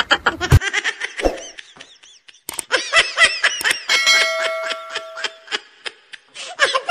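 Sound effects of a subscribe-button animation: a few sharp clicks, then a bell ding that rings on for about a second and a half, mixed with short bits of laughter.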